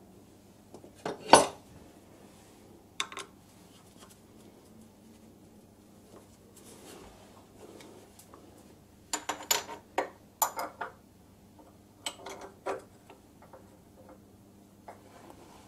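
Steel tools and parts clinking and clanking as they are handled at a lathe's spindle: a sharp clank about a second in, a couple more clinks, then a quick run of clinks a little past halfway and another group shortly after.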